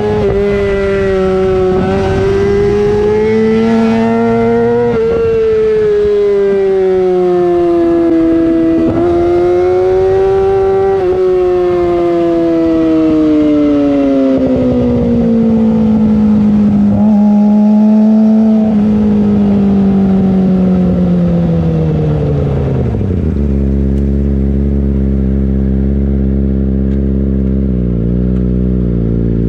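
Yamaha YZF-R6 inline-four through a LeoVince full-system exhaust, running high in the revs with the pitch rising and falling. The revs then wind down steadily as the bike slows and settle into a steady idle about three-quarters of the way through, with one short blip of the throttle near the end.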